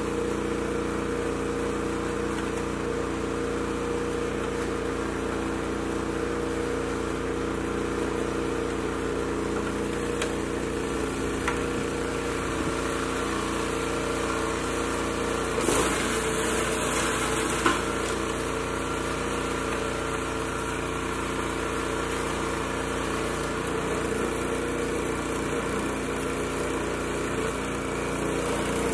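Snow blower's small gasoline engine running steadily, with a brief louder burst of noise about halfway through.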